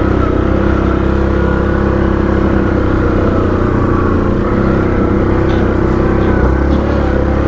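ATV engine running at a steady pitch while riding along.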